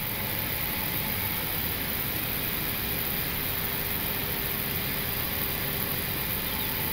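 Steady rushing hiss of an Airbus A321neo flight deck on the ground, from the ventilation and the engines at idle, with a faint steady hum coming in after about a second and a half.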